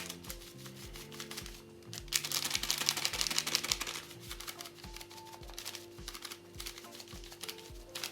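Background music with a steady beat and a held tone, and a dense run of rapid light ticking that is loudest from about two to four seconds in.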